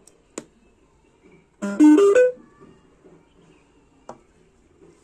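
A rebuilt Bluetooth speaker sounds its start-up chime through its amplifier module: a short, loud run of four notes stepping upward in pitch, lasting under a second. This is the sign the repaired speaker powers up and plays. A sharp click comes shortly before the chime, and a fainter one about four seconds in.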